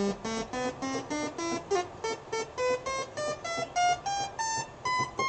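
Realistic MG-1 (Moog) analog synthesizer playing a single triangle-wave oscillator, a quick run of short notes climbing step by step up the keyboard, about three to four notes a second, with the last, highest note held near the end.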